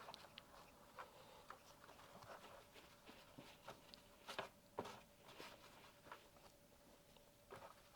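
Faint handling sounds of a wipe being rubbed over an acrylic piece: scattered light taps and rustles, with two slightly louder knocks about four and a half seconds in.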